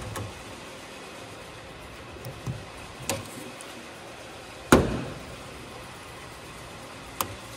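Handling noises of a rechargeable handheld work light on a tool chest top: a few light clicks and knocks, with one louder thump about five seconds in, over a steady background hiss.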